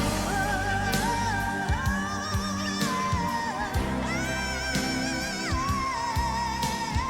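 Live rock band: a wordless female vocal soars and wavers in long held notes, sliding between pitches, over sustained low chords and steady drum hits.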